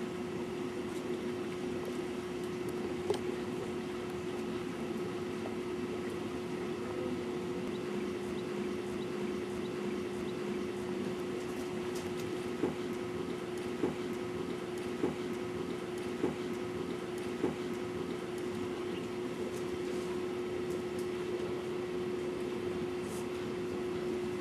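A dog licking its paw over and over, a wet lapping under a steady low hum. In the middle stretch a few sharper clicks come about once a second.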